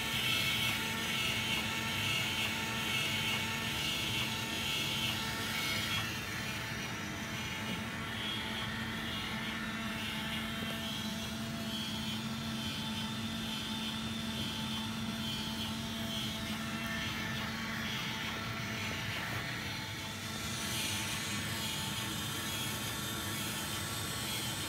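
Small battery-driven electric motor turning the fan and core stages of a 3D-printed Trent 900 model jet engine at about 72 RPM: a steady whir with several held tones, the lowest of which drops out about two-thirds of the way through.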